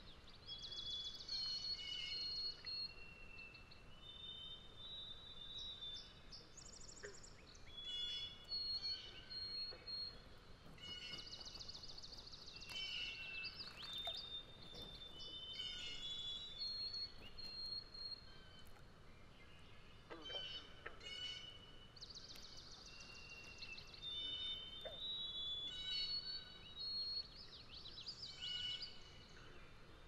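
Several songbirds singing at once, with clear whistled notes and fast trills coming and going over a faint, steady outdoor background.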